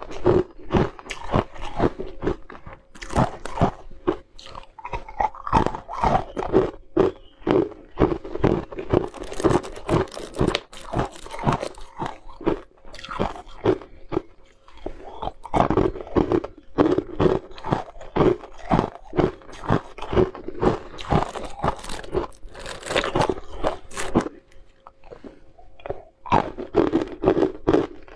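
Blue-tinted ice cubes being bitten and chewed: a dense, continuous run of sharp cracks and crunches as the ice breaks between the teeth, with only brief pauses.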